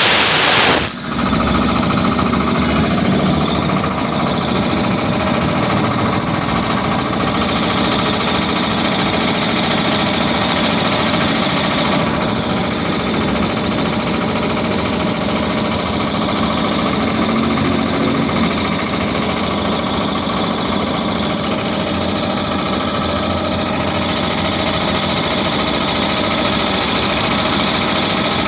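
A 3 HP Puma 3065 piston air compressor running steadily, pumping air into its tank. A loud hiss cuts off about a second in.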